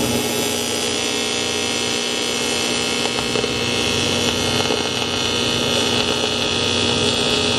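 Power saw cutting a section off the car's intercooler pipe, running steadily with a high-pitched whine.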